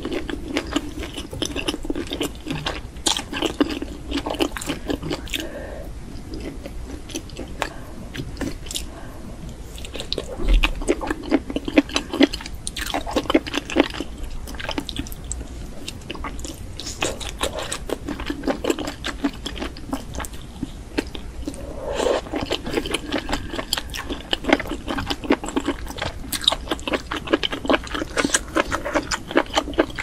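Close eating sounds of a person chewing mushrooms in a spicy sauce, with wet crunching, squishing and smacking. The chewing comes and goes in spells and is busiest about a third of the way in and again over the last third.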